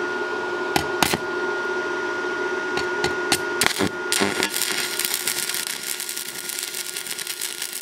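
Stick (arc) welding electrode on a steel plate: a few sharp taps as the rod is struck against the plate, then the arc catches a little under four seconds in and runs with a continuous crackling sizzle as a straight practice bead is laid. A steady electrical hum sits underneath.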